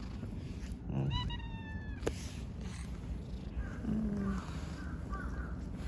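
Tabby-and-white stray cat meowing once, a high meow about a second in that falls slightly in pitch and lasts under a second. A sharp click follows just after.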